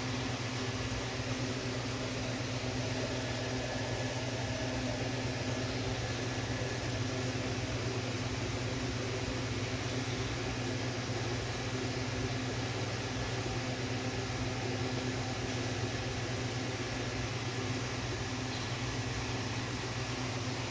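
Steady low electrical hum with a constant hiss, the background drone of aquarium pumps and filtration running.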